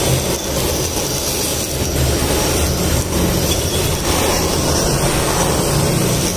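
Gas blowtorch flame running with a steady rushing hiss and a low hum underneath.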